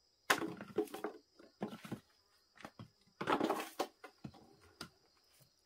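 Dry sticks and straw being handled by hand, rustling and knocking in several short, irregular bursts.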